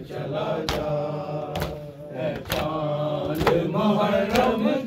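Men's voices chanting a Muharram lament (noha) in drawn-out sung phrases, with sharp slaps at a steady beat of about one every second, the rhythm of matam chest-beating.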